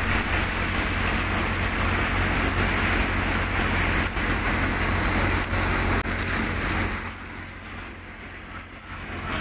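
Ajay tractor-driven grain thresher running, its blower throwing chaff out of the delivery pipe with a steady rushing noise over a low, constant engine and machine drone. About six seconds in the sound changes abruptly and runs quieter.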